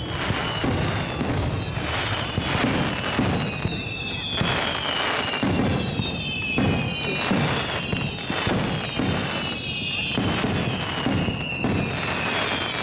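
Fireworks display: a rapid, continuous run of shell bursts and booms, overlaid with several whistling tones that slide down in pitch, one after another, throughout.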